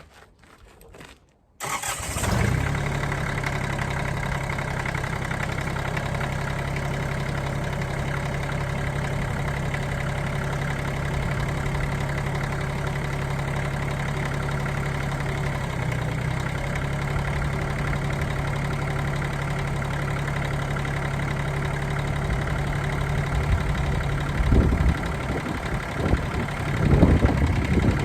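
Kioti CS2610 subcompact tractor's three-cylinder diesel engine starting up about two seconds in and settling into a steady idle. Near the end, louder uneven sounds rise over the idle twice.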